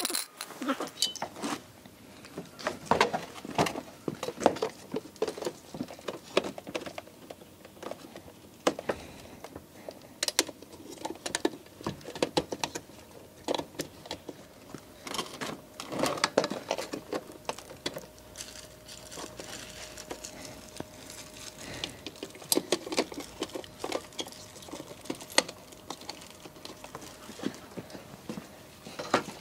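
Scattered clicks, taps and knocks of hands-on work on a car's front end: the plastic front bumper cover and its fixings being handled and fitted. A faint steady tone comes in about halfway through.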